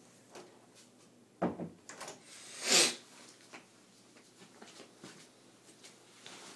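A dull knock, then a second later a louder, brief rustling swish.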